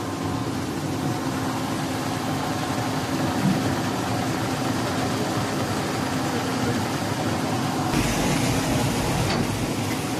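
HT-1000 double-extruder stretch film making machine running: a steady mechanical hum of its motors and rollers with a few fixed tones. Near the end a rush of noise with a low rumble comes in for about two seconds.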